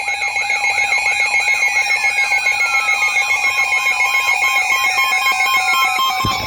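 Emergency alert signal sounding loudly: steady alarm tones with a warbling tone over them that rises and falls about four times a second, while other tones slide slowly downward in pitch.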